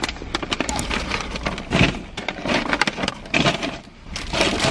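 Paper grocery bags and a wrapped flower bouquet rustling and crinkling as they are handled, with many irregular crackles.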